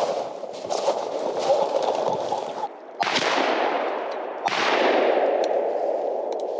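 Two shotgun shots about a second and a half apart, each trailing off in a long fading echo. Before them, crunching footsteps in snow.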